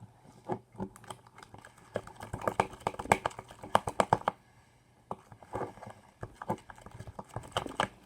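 A utensil clicking and knocking against a bowl while slime is stirred after activator drops are added, in irregular runs of quick taps that are thickest in the middle and again near the end.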